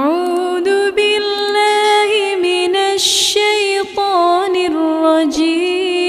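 One voice chanting Quranic recitation in a slow, melodic style, holding long drawn-out notes that bend up and down. There is a short hissing consonant about three seconds in.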